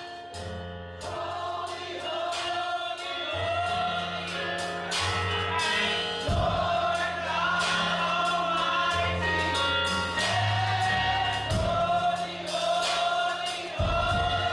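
A gospel choir singing together, backed by a steady bass line and a regular drum beat.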